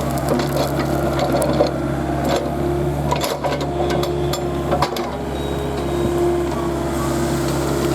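Komatsu mini excavator's diesel engine running steadily under work, with a few sharp cracks and clanks scattered over it.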